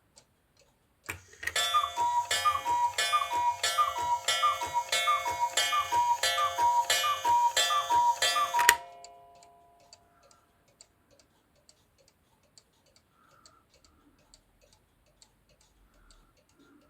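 Cuckoo clock striking: a quick run of repeated two-note cuckoo calls over the whir of its mechanism, starting about a second in and stopping suddenly after about seven and a half seconds, followed by its steady ticking.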